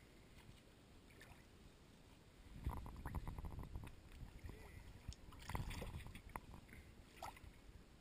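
River water sloshing and splashing right at the microphone as the camera rides at the surface, in two short bouts about two and a half and five and a half seconds in, with small clicks and gurgles.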